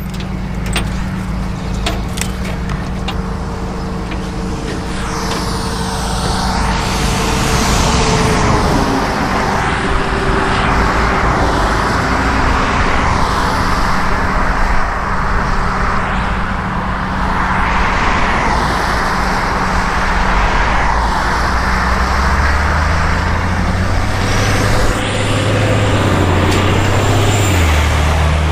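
Traffic passing on a wet highway: tyre hiss swelling and fading as one vehicle after another goes by, over the steady idle of a rollback tow truck's engine, whose note shifts near the end.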